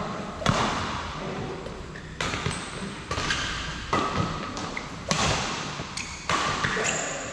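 Badminton doubles rally: rackets striking the shuttlecock about once a second, each sharp crack echoing briefly in a large hall.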